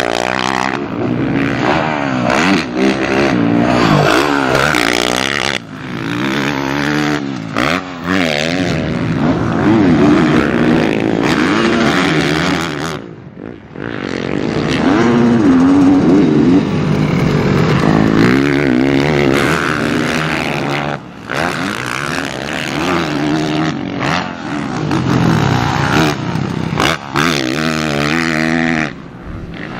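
Dirt bike engines revving hard on a motocross track, the pitch climbing and falling over and over as the riders open and shut the throttle through turns and jumps, with a few brief dips where the engine note drops away.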